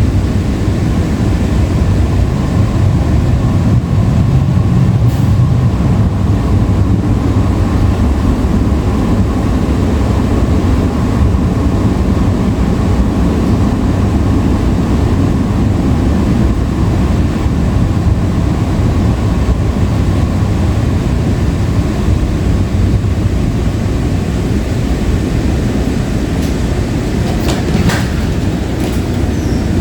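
Ride noise of a Breda LRV3 light rail car under way: a steady low rumble from the wheels and running gear, with a few sharp clicks near the end.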